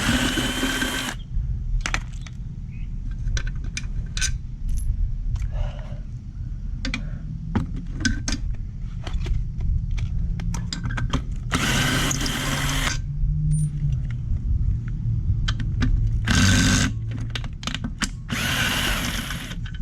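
Cordless battery drill running in four short bursts, spinning out bolts from a scooter's CVT cover, with clicks and clinks of the bolts and tools between the bursts. A steady low rumble lies underneath.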